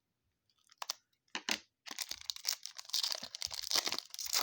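Foil trading-card pack wrapper being handled and torn open: a couple of sharp crackles about a second in, then dense crinkling from about two seconds in.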